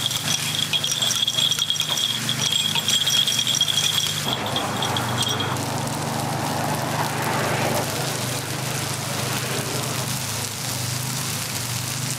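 Takoyaki sizzling in a griddle, with metal picks clicking and rattling against the pan and a thin high ringing tone over the first four seconds or so. Then the sizzle swells into a steady hiss as melted margarine is squeezed over the balls.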